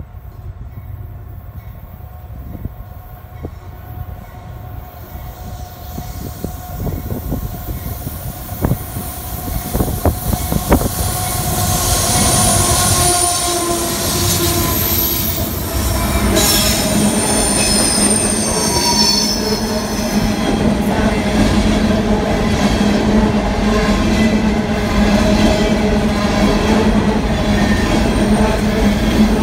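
A CSX freight train's diesel locomotives draw near and pass, growing louder over the first ten seconds or so, with sharp clicks as the wheels reach the near rails. Then a string of coal cars rolls by with a steady rumble and high wheel squeal from the curved track.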